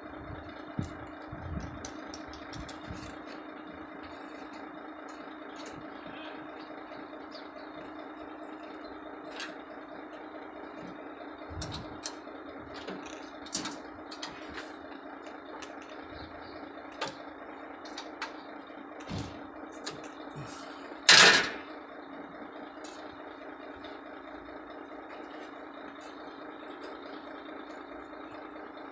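Scattered small metallic clicks and taps of hand tools at work on a diesel truck's fuel feed pump fitting, over a steady mechanical hum. A single loud, short burst comes about two-thirds of the way through.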